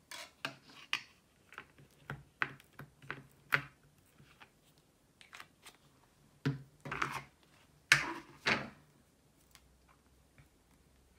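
Small clicks and taps from hands working a glue stick and a knitting needle over a plastic plate, with a few louder knocks and clatters about six and a half to nine seconds in, then little more than faint handling.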